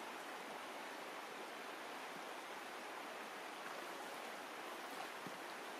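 Shallow, rocky stream flowing over stones: a steady rush of water.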